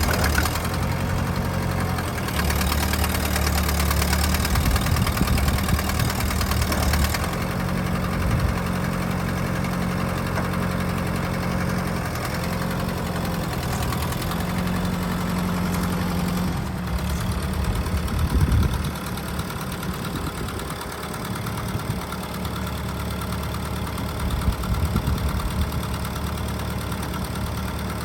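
Kubota M59 tractor's four-cylinder diesel engine running, its note changing several times as the engine speed or load shifts, then settling a little quieter about two-thirds of the way through.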